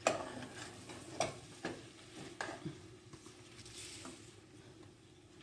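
Minced meat frying in a pan while a spoon stirs it, knocking and scraping against the pan several times in the first few seconds, with a faint sizzle.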